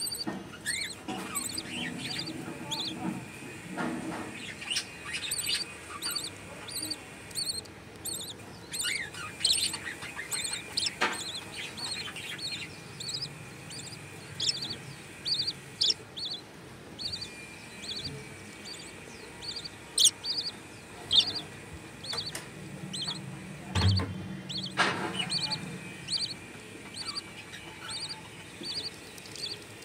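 Budgerigar chicks begging while the hen feeds them: a long run of short, high cheeps repeated about twice a second.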